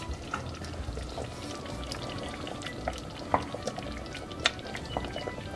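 Beef stew simmering in a steel pot, with many small bubbles popping, then a wooden spoon stirring the thick stew with two sharp knocks against the pot. Soft background music plays underneath.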